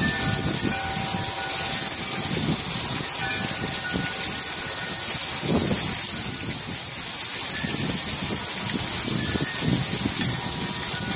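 Heavy rain falling with a steady hiss, with scattered soft tones from a hanging wind chime of small bells and uneven low rumbles underneath.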